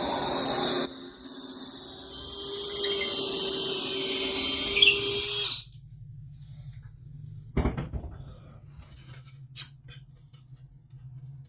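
Power drill boring into a wooden board to enlarge bolt holes, running steadily and stopping about halfway through. A single knock follows a couple of seconds later.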